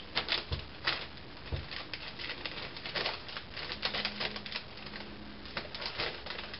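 Plastic makeup palettes and their packaging being handled: a run of irregular light clicks and rustles.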